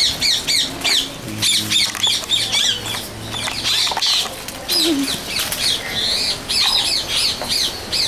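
Many birds chirping and squawking, a dense run of quick high calls, with a few sharp clicks among them.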